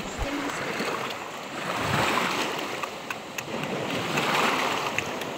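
Waves washing on the shore: a rushing noise that swells and eases, with a few faint clicks.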